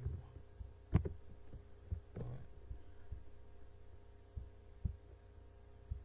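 A few clicks and soft thumps from a computer mouse and desk, with one sharp click about a second in, over a steady low electrical hum on the microphone.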